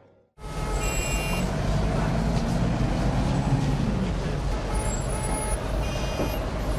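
Street traffic noise that cuts in suddenly: a heavy road vehicle's engine running close by, its note rising and falling in the middle, over a steady rumble, with brief high squeals twice.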